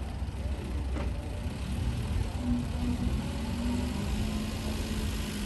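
An engine running steadily at idle, a low rumble with a faint hum above it and a single light click about a second in.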